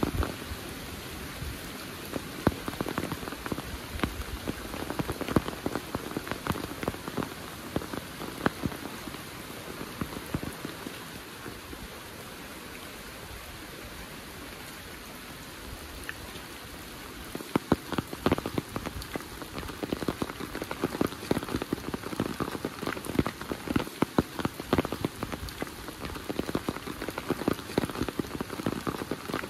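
Heavy rain falling, a steady hiss dotted with sharp hits of large drops close by. The close drop hits thin out midway, then come back denser and louder for the second half.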